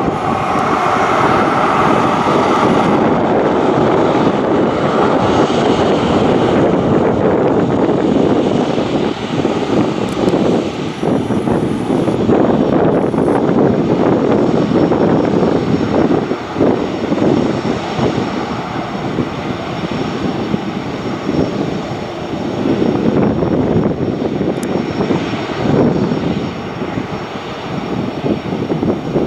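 Twin jet engines of an Airbus A320-family airliner running as it taxis onto the runway: a loud, steady rumble that eases somewhat in the last third.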